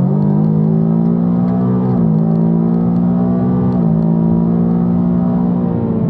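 Supercharged Ford Coyote 5.0 V8 (Edelbrock 2650 blower) accelerating hard under full throttle, heard from inside the car. The engine note climbs, then drops at an upshift about two seconds in and again nearly two seconds later.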